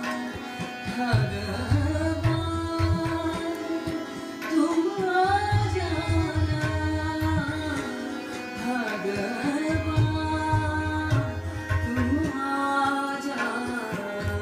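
A woman singing a Hindustani devotional bhajan in Raag Bhairavi, her melody gliding and ornamented over a sustained drone, with low drum strokes beneath.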